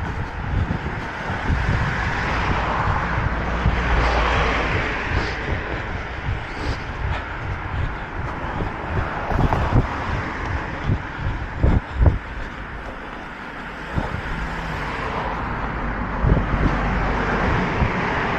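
Road traffic passing, with a low rumble of wind on the microphone and a few sharp knocks around the middle.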